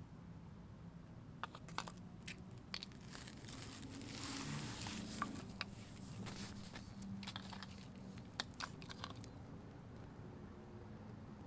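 Handling noise: a scatter of sharp clicks and taps with crinkling, and a denser rustle about four seconds in.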